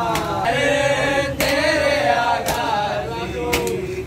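A group of men chanting a mourning lament together, with three sharp slaps about a second apart, the beat of matam (hands striking the chest).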